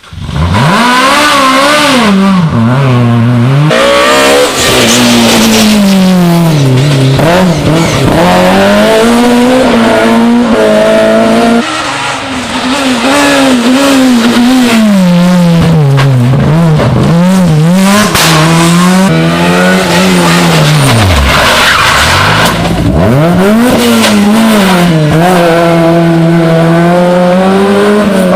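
Rally car engine at full load on a special stage, revving up and dropping back again and again through gear changes and braking, with tyres squealing as it slides through the corners.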